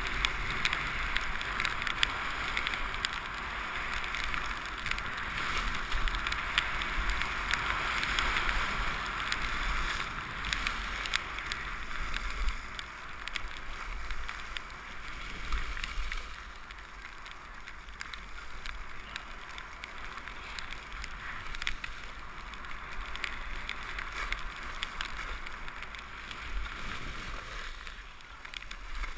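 Skis sliding and scraping over packed snow in a steady hiss with small clicks, louder in the first half and easing off partway through, with wind rumbling on the microphone underneath.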